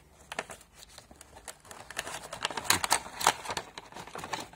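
Stiff clear plastic blister pack and cardboard box being handled as a phone mount is pulled out: irregular crinkling and clicking of the plastic, with two sharper cracks about two thirds of the way through.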